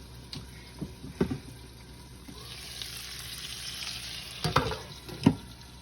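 Ribeye steak searing in a pan of butter and rosemary, the sizzle swelling about halfway through. Several sharp knocks come through it, the loudest two near the end.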